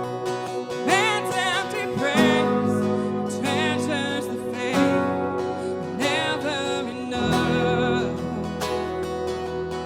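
Worship song played by a band: acoustic guitar over sustained keyboard and bass notes that change every couple of seconds, with a voice singing long wavering notes between phrases.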